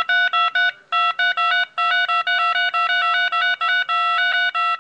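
Telephone keypad touch-tones (DTMF dialing beeps), keys pressed in rapid succession at about four or five beeps a second, some held slightly longer, with brief pauses about one and two seconds in.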